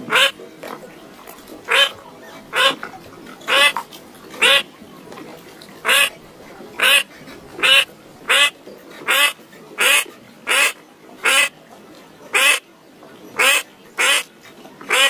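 A bird giving short, harsh calls over and over, evenly spaced at a little more than one a second.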